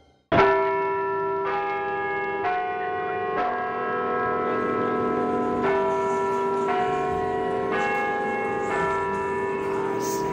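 Bells struck in a slow melody of eight notes, two phrases of four at about one stroke a second, each note ringing on into the next.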